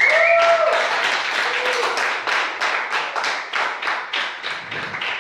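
Small audience applauding, with a brief shouted cheer in the first second; the clapping thins toward the end into scattered individual claps.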